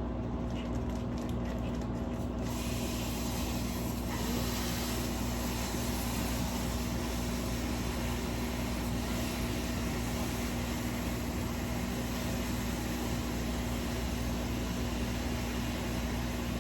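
Ground beef sizzling in a hot pan cooked without oil; the sizzle comes in a couple of seconds in, grows louder soon after, and then holds steady.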